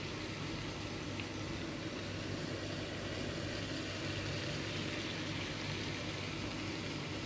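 Steady kitchen background noise: an even hiss with a low hum underneath, unchanging throughout.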